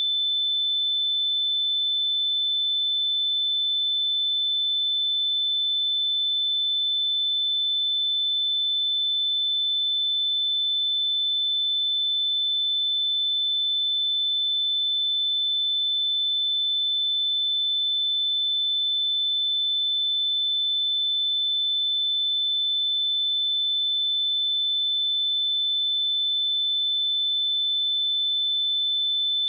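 A single steady 3522 Hz sine-wave test tone, one pure high-pitched note held at a constant level.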